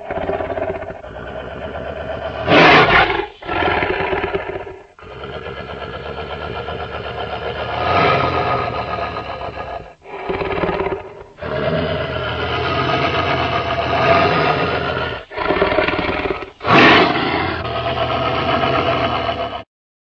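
Custom Indominus rex creature sound effect: a run of long, layered dinosaur roars with short breaks between them. The loudest comes about three seconds in and again near the end, and the last roar cuts off suddenly just before the end.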